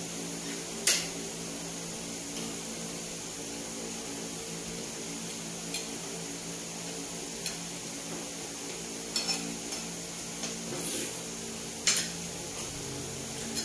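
Tableware clinking while eating: about eight sharp clicks of utensils against a plate or bowl at irregular moments, the loudest about a second in and near the end, over a steady low hum.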